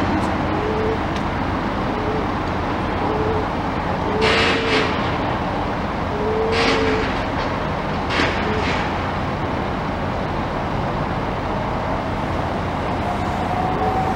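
Heavy demolition machinery running steadily, with a recurring short whine. There are three brief bursts of crunching or scraping noise, about four, seven and eight seconds in.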